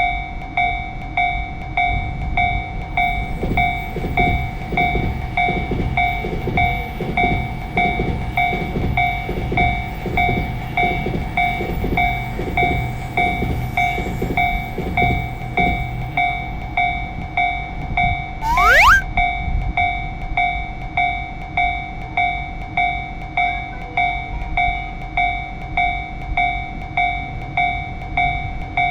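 Japanese level-crossing warning bell ringing in an even, repeating "kan-kan" pulse. A train passes with rhythmic wheel clatter for about the first half, and a brief rising sweep sounds about 19 s in.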